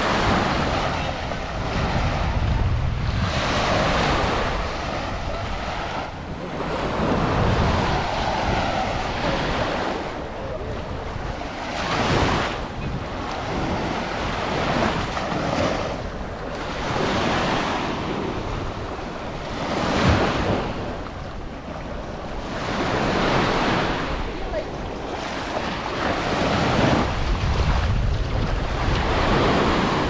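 Small waves breaking and washing up on a sandy beach, each swell of surf noise rising and falling every few seconds, with wind buffeting the microphone.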